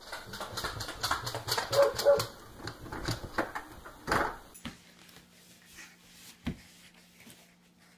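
A dog whimpering and yelping briefly amid quick taps and clicks. After about four and a half seconds it gives way to a quieter stretch with a low steady hum and a few knocks.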